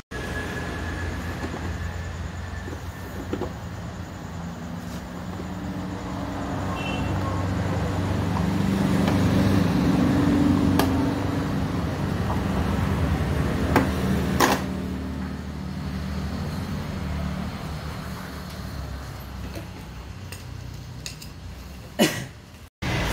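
A low, steady vehicle-engine rumble that grows louder toward the middle and then eases off, with a few sharp clicks.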